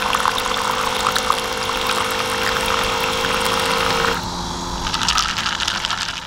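A battery-powered bottle-top water pump (Code9 smart folding water pump) runs with a steady hum while its stream of water pours and splashes into a stainless steel cup. The pump's hum stops about four seconds in, and quieter splashing and fizzing in the cup carry on.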